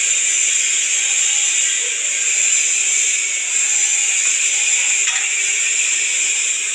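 Electric arc welding: the arc hisses steadily as a weld bead is run on a vertical (3G) joint.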